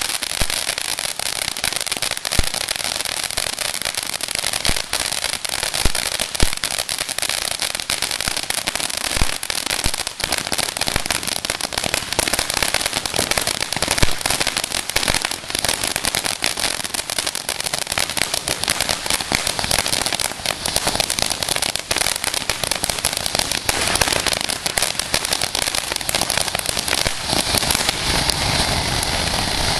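Sting of the Scorpion consumer firework going off: a dense, continuous crackle of many sharp pops, with a few louder single bangs standing out.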